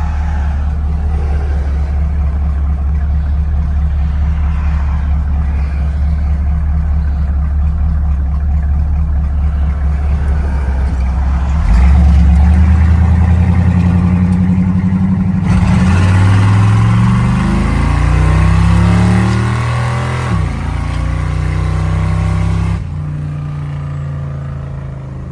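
A 1973 GMC pickup's engine running as the truck is driven, then accelerating hard about twelve seconds in, its pitch climbing, dropping back at a gear change and climbing again, before settling and easing off a few seconds before the end.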